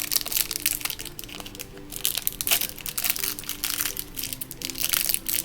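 Toy packaging being handled and opened, a dense run of irregular crinkling and crackling, with faint background music underneath.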